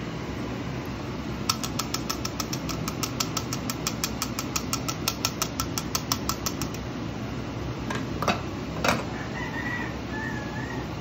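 A small plastic-handled mesh strainer being tapped in a fast, even run of light clicks, about seven a second, for about five seconds while liquid is strained through it. A couple of louder knocks follow. A steady low hum runs underneath.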